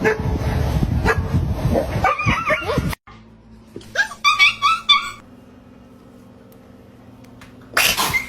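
A dog giving a quick run of short, high yips about four seconds in, after a louder noisy jumble in the first few seconds.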